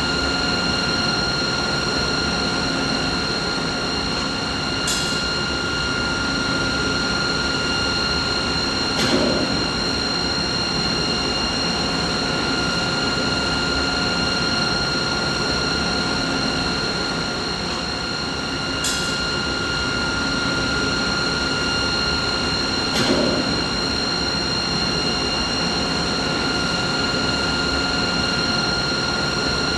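Steady running machinery: a constant high whine with a ladder of overtones over an even rumbling hum. Four brief clicks break through it, two of them with a short thump.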